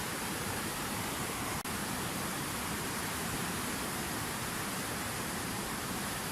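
Steady rushing of water falling in a fountain waterfall, an even hiss with a brief dropout about one and a half seconds in.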